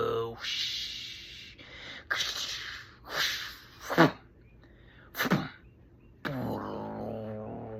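A man making vocal sound effects without words: a hiss, then several short breathy bursts with one sharp, loud burst about four seconds in, then a long pitched voiced tone starting about six seconds in.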